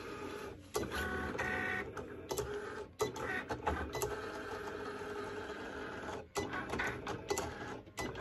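Cricut electronic cutting machine running: its motors whir and change pitch in steps as it feeds the cutting mat and moves the blade carriage, with several sharp clicks.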